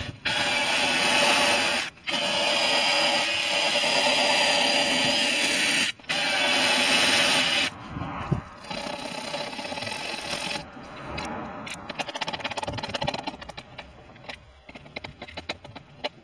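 Cordless drill spinning a wire brush against a rusty steel car body panel, scouring off the rust; it runs steadily with two brief breaks and stops about eight seconds in. Quieter scraping and handling sounds follow.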